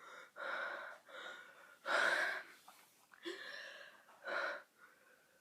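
A boy gulping air in about five short, breathy gasps, the loudest about two seconds in, as he works up the next burp.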